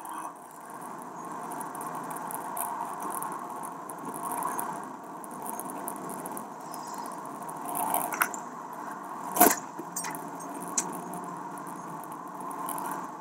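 Steady road and engine noise inside a moving lorry cab, with small rattles and clicks from the cab fittings. One sharp knock about nine and a half seconds in is the loudest sound.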